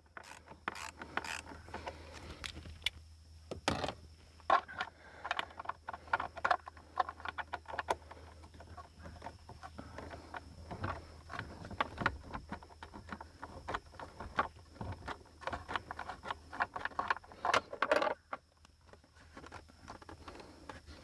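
Quarter-inch drive ratchet with a T27 Torx bit clicking in irregular runs, with metal scraping and rattling, as a Torx screw holding the steering-wheel airbag is loosened and backed out.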